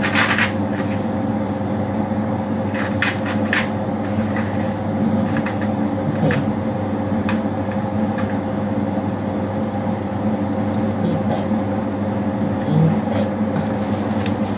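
Steady electric motor hum from a room appliance, with a few light clicks and knocks of handling scattered through, one near the start and a couple around three to six seconds in.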